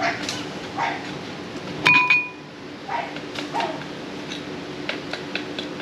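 A kitchen utensil clinks sharply once against a bowl about two seconds in and rings briefly. Around it come several short, high, falling whines, over a steady low hum.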